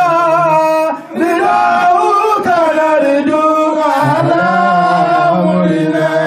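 Men singing a chant into a microphone through a PA, in long held notes that waver and bend in pitch, with a short break about a second in.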